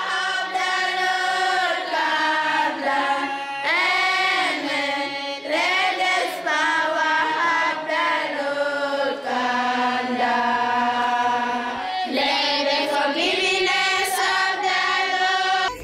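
Singing voices carrying a slow melody in long phrases, the notes sliding and bending, with no beat underneath.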